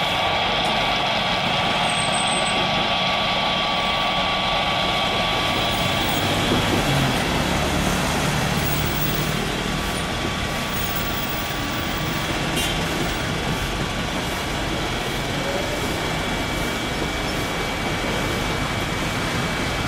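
Boeing 737 cargo jet's turbofan engines during landing: a steady rush of jet noise with a high whine as it comes in on final, touches down about halfway through and rolls out.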